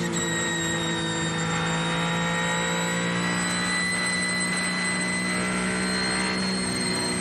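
Ferrari 499P Hypercar's twin-turbo V6 heard from inside the car, held at steady high revs with a constant note. A high-pitched whine runs over it.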